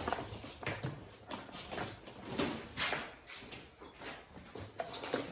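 Irregular rustling and knocking of handling as the long lead of a power probe is uncoiled and its clips are put on a car battery.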